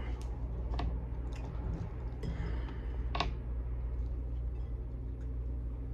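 Quiet eating and handling sounds: a few scattered soft clicks and taps, one sharper about three seconds in, over a steady low hum.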